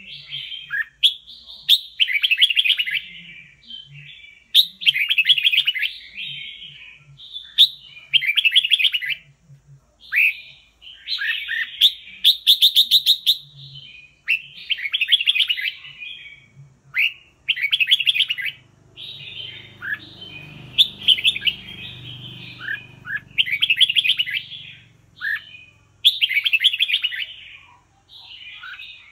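Red-whiskered bulbul singing: a run of short, high warbled song phrases repeated about every one to two seconds with brief pauses between.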